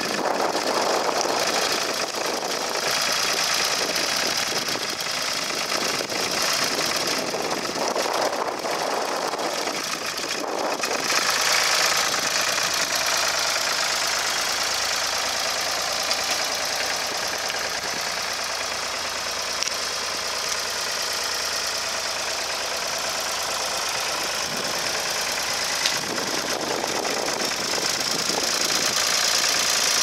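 Ford 2600 tractor engine running steadily with a knocking beat while pulling a two-furrow plough through the ground.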